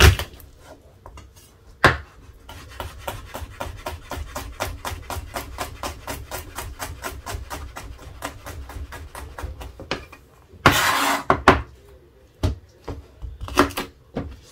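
Chef's knife chopping garlic on a plastic cutting board: two hard knocks, then rapid, even mincing at about six chops a second. Near the end comes a loud rasping noise lasting about a second, then a few single chops.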